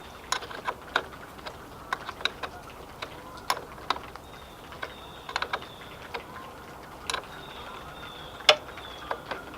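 Irregular sharp metallic clicks and taps from hand tools working on battery terminal connections, about a dozen spread unevenly.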